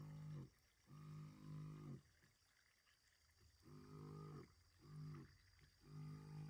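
Knapsack sprayer's pump humming in short runs, starting and stopping abruptly five times, each run under a second or so, at a steady low pitch.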